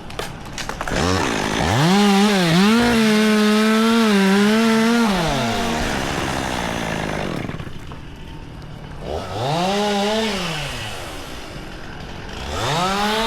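Two-stroke chainsaw revved up to full throttle three times, dropping back to idle in between. The first run is the longest, about three seconds near full speed. A few sharp clicks come just before the first rev.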